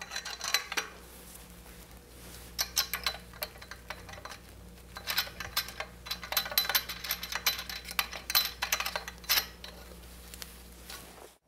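Small metallic clicks and clinks of a hex-head bolt and wing nut being fitted and turned by hand at a bracket joint of an aluminium Laser dolly frame. They come in short clusters of rapid ticking, the longest in the second half.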